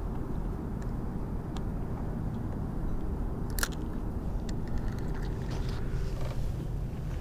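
Small clicks and knocks of fishing gear being handled in a boat, with one sharper knock about three and a half seconds in, over a steady low rumble.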